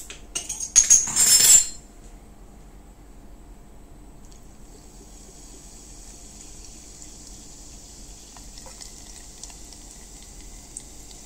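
A brief loud clatter and hiss in the first two seconds. Then soda water pours from a glass bottle over ice into a glass: a faint, steady fizzing trickle with scattered small crackles.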